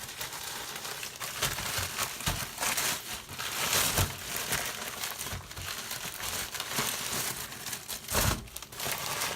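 Packaging crinkling and rustling as a box of wheels is unpacked by hand, with louder handling about four seconds in and again near the end.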